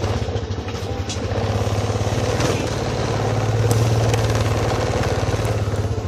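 A vehicle engine running steadily with a rapid, even throb, slightly louder around the middle.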